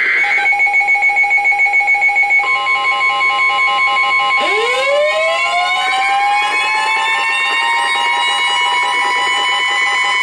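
Emergency alert tones sounding together: a rapidly pulsing alarm beep, joined a couple of seconds in by a steady tone and, about four seconds in, by a siren winding up in pitch and then holding. They lead into a tornado warning broadcast.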